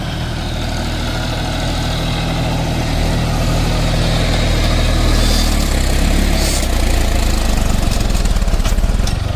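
Engine running steadily at idle, low in pitch.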